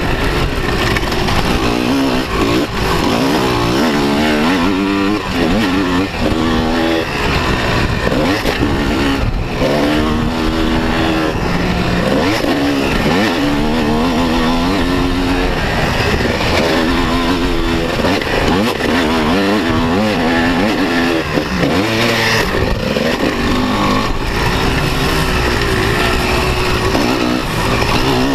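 250cc motocross bike engine racing on a dirt track, revving up and dropping off over and over. The pitch climbs on the throttle and falls away when it is closed, under a steady noisy rush.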